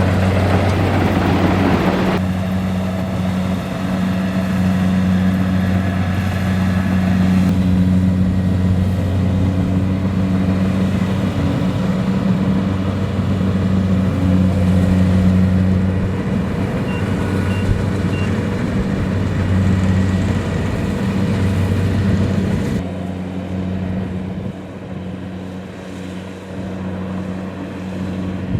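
Kubota DC-70 Plus combine harvester's diesel engine running steadily under harvesting load, a deep constant drone. The higher noise fades about two seconds in, and the whole sound gets quieter near the end.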